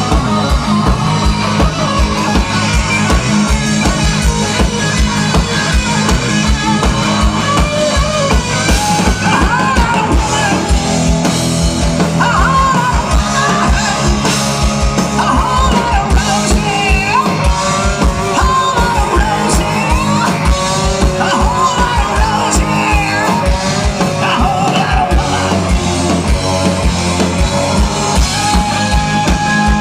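Live rock band playing loudly: drums and bass in a quick, steady pulse under electric guitar, with singing.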